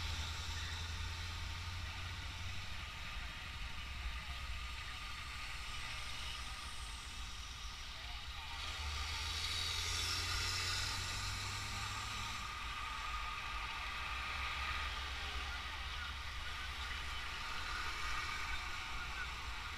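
Road traffic passing close by: heavy trucks and a minibus going past over a steady low hum, with the loudest pass, a large truck, swelling and fading from about nine to twelve seconds in.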